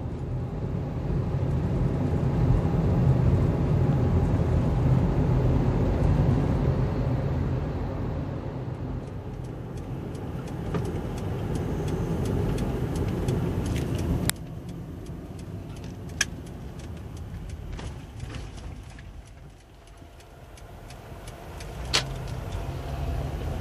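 Car driving, heard from inside the cabin: steady engine and tyre rumble that drops suddenly about two-thirds of the way through and grows quieter as the car slows, then picks up again near the end. A few sharp clicks sound over it.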